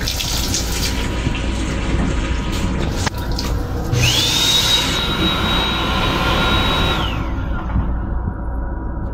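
Water from a train-restroom faucet runs into the sink for the first few seconds. About four seconds in, the M7 railcar toilet flushes: a short rush, then a high motor whine that rises quickly, holds steady for about three seconds and winds down. A low rumble from the moving train continues underneath.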